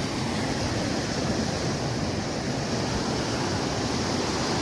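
Ocean surf breaking and washing up the sand, a steady rushing noise, with wind buffeting the microphone.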